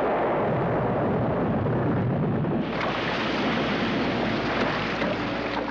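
Aftermath of an explosion at sea: spray and debris raining down onto the water, heard as a continuous rushing noise over a low rumble that turns brighter about two and a half seconds in.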